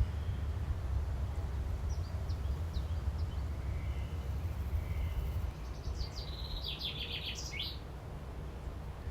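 Small birds chirping, a few scattered calls and then a quick run of rapid chirps near the end, over a steady low rumble.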